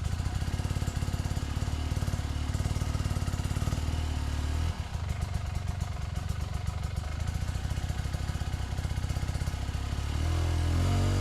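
Enduro dirt bike engine running at low revs with an even pulse. It dips briefly a little before halfway and picks up louder near the end.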